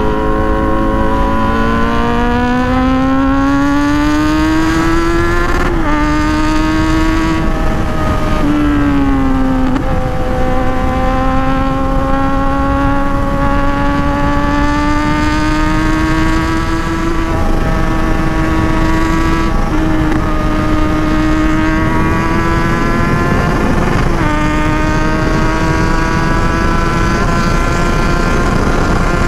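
Kawasaki Z900's 948 cc inline-four, fitted with a full-system aftermarket exhaust, under full-throttle acceleration. Its note climbs steadily and dips briefly at each of several quick upshifts, about six seconds in and again near ten, seventeen, twenty and twenty-four seconds, with wind rushing over the microphone throughout.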